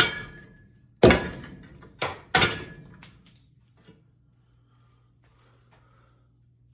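A ceiling fan being smashed: a run of sharp blows with a short ringing rattle after each, five in about three seconds and a fainter knock near four seconds.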